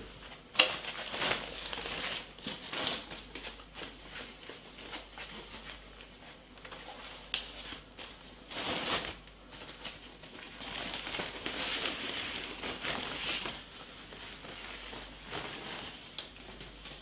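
Plastic packaging crinkling and rustling as it is handled and pulled open, with a sharp click about half a second in and busier crinkling in the second half.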